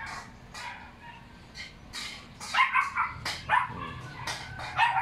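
A dog barking repeatedly: faint at first, then a quick run of loud barks from about halfway in, roughly three a second.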